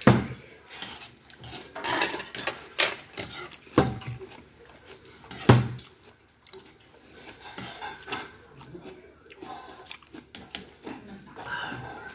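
Stainless-steel chopsticks and spoons clinking and clacking against an earthenware soup pot and ceramic side-dish plates while eating, in irregular strokes with a few louder knocks, the loudest about five and a half seconds in.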